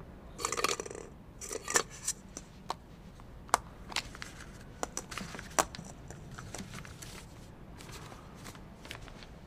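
A hand rummages among draw balls in a glass bowl. Then come a series of sharp clicks and rustling as a plastic draw ball is twisted open and the paper slip inside is unfolded.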